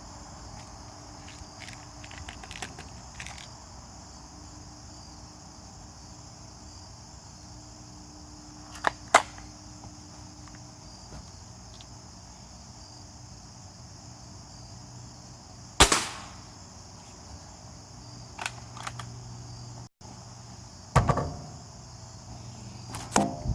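Gunshots from a gun being sighted in on a target: a sharp crack about nine seconds in and a louder one about sixteen seconds in, with a few lighter knocks near the end. Insects chirr steadily underneath.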